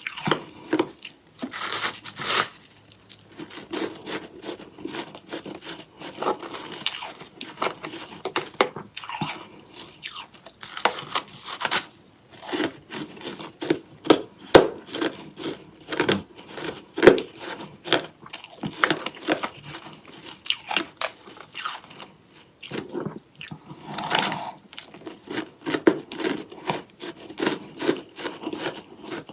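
Close-up eating of soft, powdery freezer frost: repeated bites and chewing with crisp, irregular crunching and crackling.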